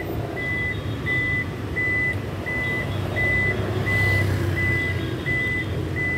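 Toyota Kijang Innova Zenix power liftgate opening, its warning buzzer beeping steadily at about three beeps every two seconds while the tailgate rises. The beeping stops as the gate reaches fully open near the end.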